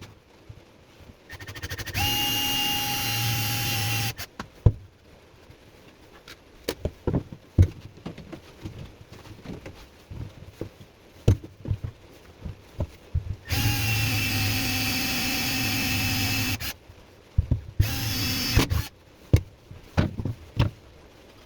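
Electric drill with an 8 mm bit boring into a wood slice, run in three bursts: about two seconds starting two seconds in, a longer run of about three seconds past the middle, and a short burst near the end. Knocks and handling clicks come between the runs.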